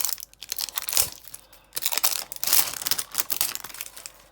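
Crinkly plastic toy packaging being handled and torn open, with a couple of sharp clicks early and about a second in, then a denser stretch of crinkling in the middle.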